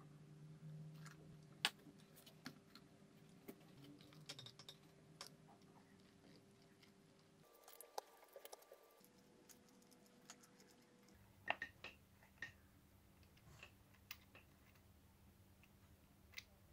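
Faint, scattered clicks and light plastic rattling as a small 1/14-scale RC truck axle is handled, its wheels and driveshaft turned by hand; a few sharper clicks come about a third of the way in and in a short cluster past the middle.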